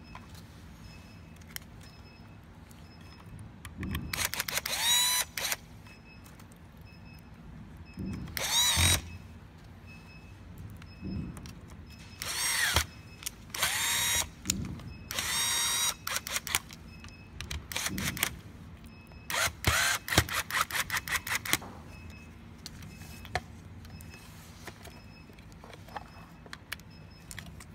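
Electric screwdriver driving screws into a circuit board: about seven short runs, each a whine that rises in pitch as the motor spins up, the longest, about two-thirds of the way in, ending in a quick series of clicks.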